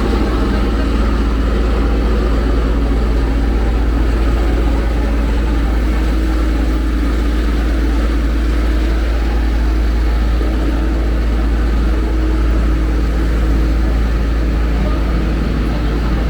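A large engine idling steadily close by, with a heavy, unbroken low rumble.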